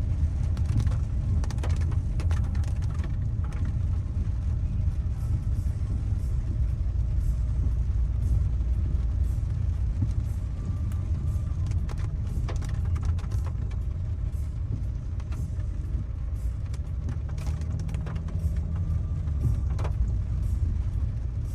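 Inside a car moving slowly on a wet road: a steady low rumble of engine and tyres, with scattered taps of raindrops hitting the windshield.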